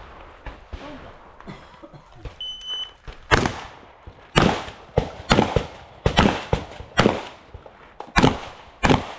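A shot timer's start beep, then a shotgun fired rapidly in a practical shooting course of fire: about ten shots over six seconds, spaced roughly half a second to a second apart.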